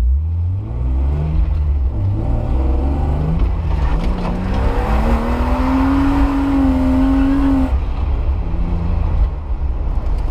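Car engine accelerating under load, its revs climbing in several steps and then held high for a few seconds before dropping off about eight seconds in.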